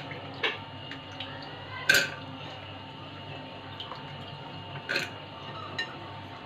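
Soaked dried peas dropped by the handful into an aluminium pressure cooker, clattering against the metal in a few sharp bursts, the loudest about two seconds in and five seconds in.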